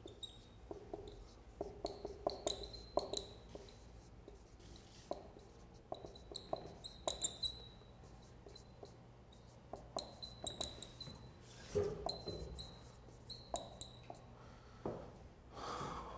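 Dry-erase marker writing on a whiteboard: many short, high-pitched squeaks and small taps in quick clusters, stroke by stroke, with short pauses between words.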